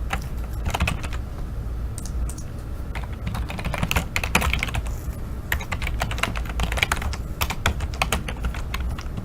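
Typing on a computer keyboard: irregular runs of quick keystrokes over a steady low hum.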